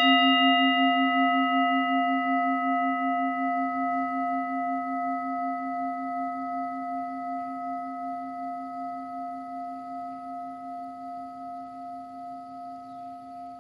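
A meditation bell struck once, ringing on in a long, slowly fading tone with a gentle wavering pulse. It marks the start of a sitting meditation period.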